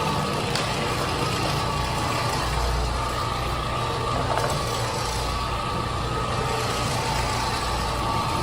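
Floor-cleaning machine running steadily with a constant low hum and a steady whine, without a break.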